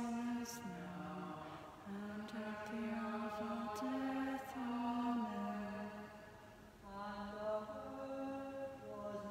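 A man's voice singing plainchant unaccompanied, slow held notes moving up and down by small steps, with a short break for breath about six and a half seconds in.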